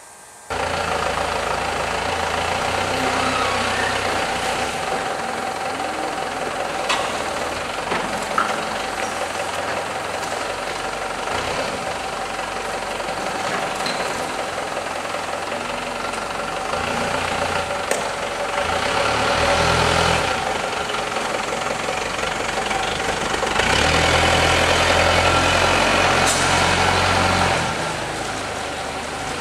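Mechanical noise of a crate handling line running, over which a Toyota forklift's engine runs and rises twice to a louder, deeper drone as it works. A few sharp clanks of crates and metal.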